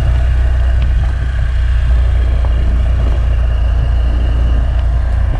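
Motorbike engine running steadily while riding, with a strong steady low rumble.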